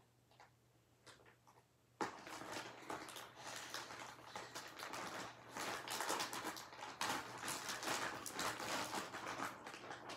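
Packaging rustling and crinkling as a knitted blanket is worked out of it by hand. It starts suddenly about two seconds in and goes on as dense, irregular crackling.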